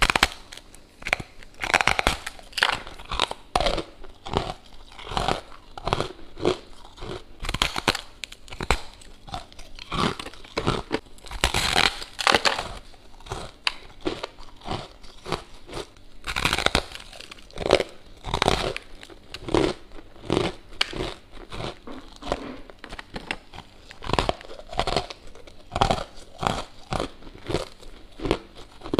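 Freezer frost chunks being bitten and chewed close to the microphone: an irregular run of crunches, chalky and crumbly, with a few louder bites standing out.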